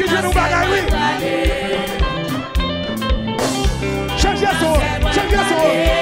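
Live gospel worship band playing: drum kit and congas keeping a steady beat under electric guitar and bass, with singing voices over it.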